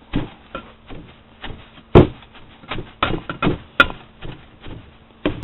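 A hammer tamping sawdust packed tight around a pipe in a metal popcorn tin: a run of irregular knocks and dull thuds, the loudest about two seconds in and a sharp knock just before four seconds.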